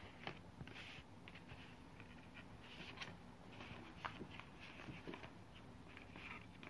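Faint rustling of paper sleeves and photocards being handled, with a few light clicks and taps.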